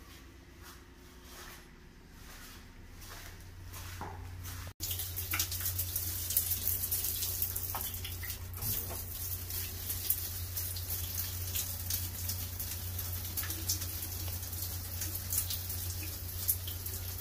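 Water running from a shower faucet in a tiled stall, a steady hiss that comes in abruptly about five seconds in after a quieter start.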